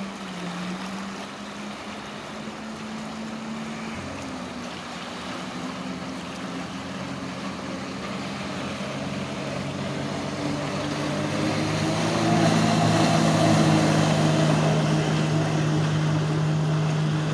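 Jet ski engine running at speed, a steady drone that shifts in pitch about four seconds in and grows louder from about ten seconds in as it comes closer.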